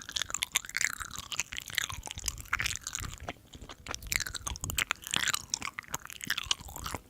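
A person chewing and biting food close to the microphone, mukbang style: a dense run of sharp crackles and wet mouth sounds.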